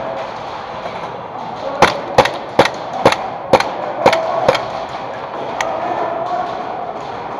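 Airsoft pistol fired seven times in quick succession, about two shots a second, each a sharp snap.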